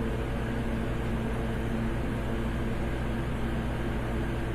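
Steady machine hum over an even hiss, unchanging throughout, as from a running fan or air unit in the workshop.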